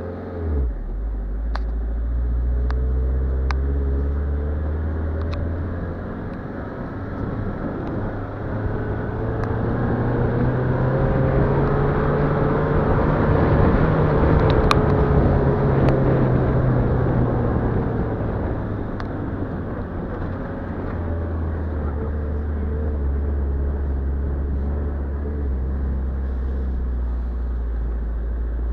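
Car engine and tyre noise while driving slowly over a rough dirt track. The engine note rises through the middle and eases off again, with scattered small ticks and knocks from the road.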